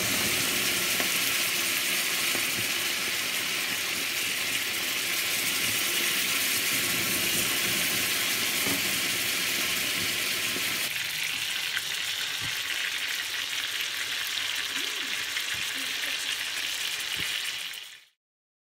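Salmon fillets sizzling on a hot cast-iron sizzling plate, a loud steady hiss and crackle of spitting fat. About halfway through, the low rumble underneath drops away, and the sound cuts off suddenly near the end.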